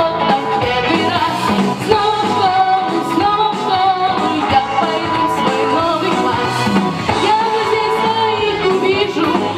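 A boy singing a pop song into a handheld microphone over an instrumental backing track.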